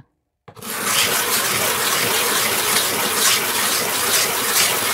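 A stone rubbed by hand on a wet abrasive lap disc, making a steady scraping as its cut face is ground flat. It starts about half a second in, after a brief silence.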